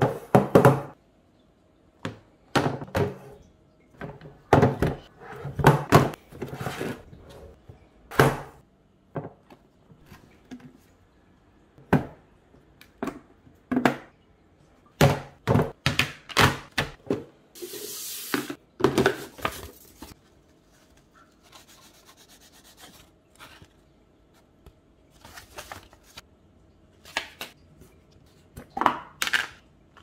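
Silicook plastic food-storage containers and lids being handled on a tabletop: irregular knocks, taps and thunks as boxes are set down and lids pressed on, with rubbing of plastic on plastic. A rubbing rush of about a second comes a little past halfway.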